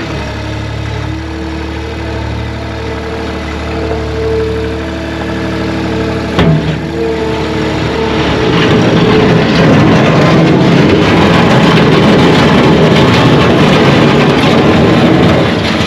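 A small engine running steadily, a sharp knock about six seconds in, then from about eight seconds a two-stroke chainsaw running hard and louder, as when it is cutting through firewood.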